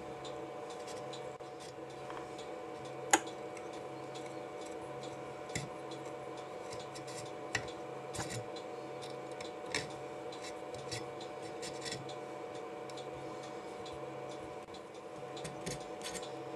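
Small scattered clicks and scrapes of a half-millimetre drill bit worked by hand through solder-filled holes in a circuit board, the sharpest click about three seconds in, over a steady hum.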